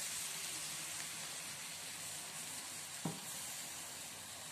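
Butter-and-flour white sauce sizzling and bubbling in a frying pan as it is stirred with a spatula, with a single light knock about three seconds in.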